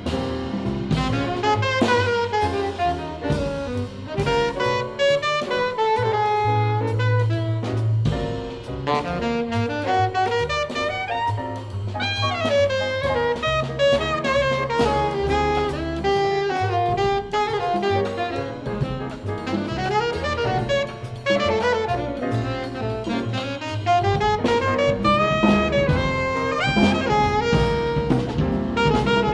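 Live jazz combo: an alto saxophone plays fast, sweeping melodic lines over drum kit, acoustic bass and piano.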